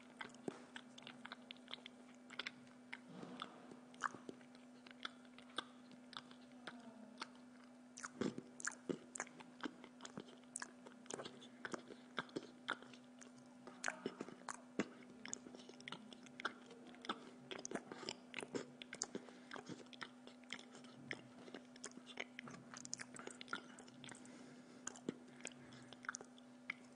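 A person chewing and biting into a slice of pizza close to the microphone, with many short, irregular mouth clicks and crunches of the crust. A steady low hum runs underneath.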